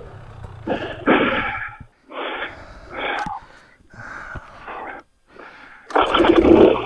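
A dirt-bike rider's heavy breathing close to the microphone: four or five breaths about a second apart.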